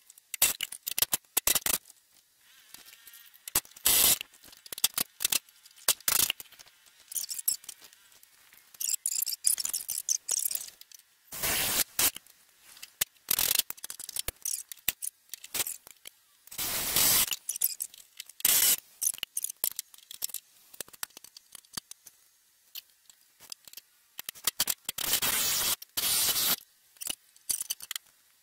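Hand work on a van's rusted rear frame rail: irregular sharp metal clicks and clanks of tools and steel parts, with a few longer rasping noises lasting about a second.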